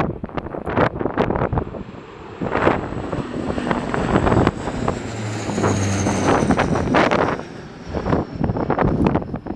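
Bombardier Dash 8 Q400 turboprop airliner passing low overhead on approach: a low propeller drone and a high engine whine that falls in pitch as it goes over. Heavy gusts of wind buffet the microphone throughout and are the loudest sound.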